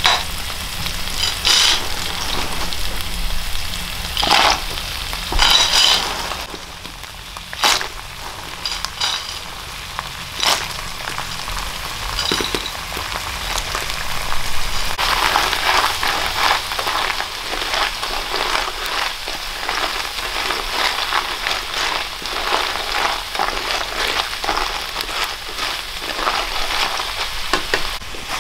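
Food sizzling and crackling as it fries in a pan, with a few short sharp knocks in the first half. The crackle grows denser about halfway through.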